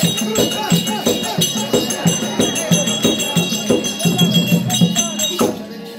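Live Tamil folk-drama music for a dance: drum strikes on a steady beat of about three a second with jingling bells and a wavering melody over them.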